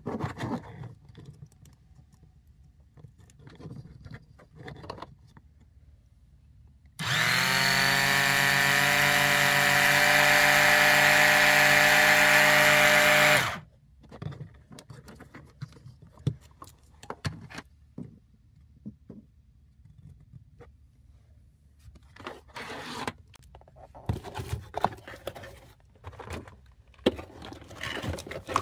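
Ultimate Speed UOP 12 C1 12V oil extraction pump's electric motor running for about six seconds with nothing on its ports. It starts with a rising whine, settles into a loud steady whine and stops abruptly. This is the repaired pump being test-run. Around it are clicks and rustles from handling the crocodile clips and the cardboard box.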